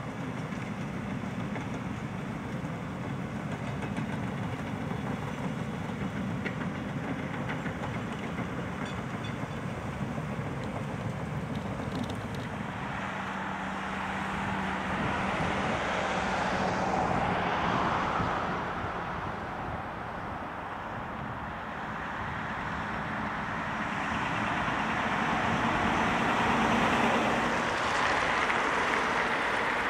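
Diesel engine of a road-construction excavator running steadily, with traffic passing close by. The passing vehicles swell loudly about halfway through and again near the end.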